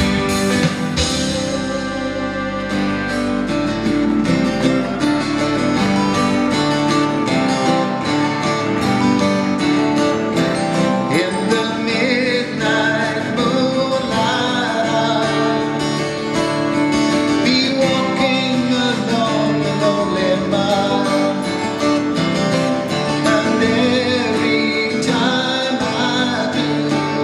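Acoustic guitar strummed in steady chords while a man sings, performed live on stage.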